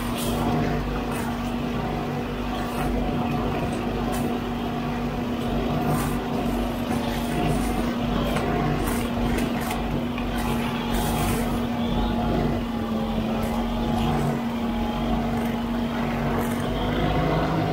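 Huddig 960C6 backhoe loader running steadily while its boom-mounted hydraulic brush cutter spins in the roadside brush, a constant hum with a steady tone. Irregular snaps and crackles come from twigs and brush being cut.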